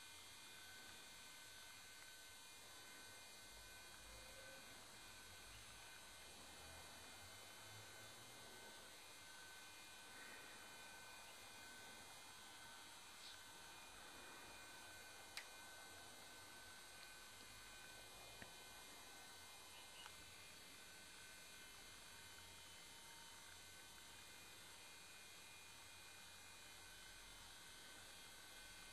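Near silence: a faint steady hum, with a few faint clicks around the middle.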